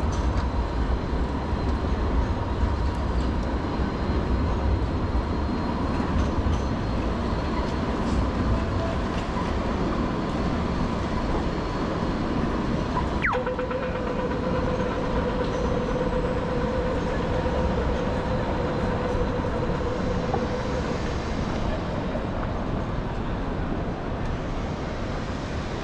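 Light rail tram running past with a low rumble and steady electric whines. About halfway through, a tone sweeps sharply down in pitch and a lower steady hum holds for several seconds before fading.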